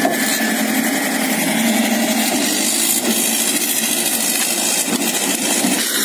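Logging skidder tractor's engine running steadily close by.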